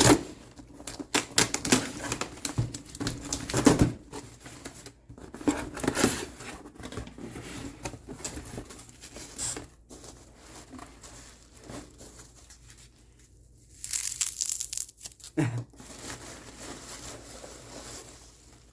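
A package being opened by hand: irregular crinkling and tearing of packaging, busiest in the first few seconds, with a louder tearing burst and then a single knock about two-thirds of the way in.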